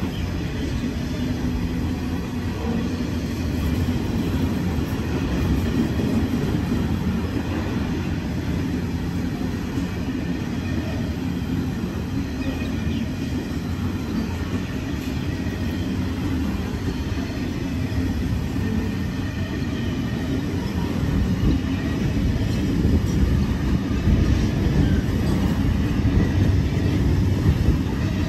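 Container freight train's wagons rolling past on the rails: a continuous low rumble of wheels and wagons, getting a little louder over the last several seconds.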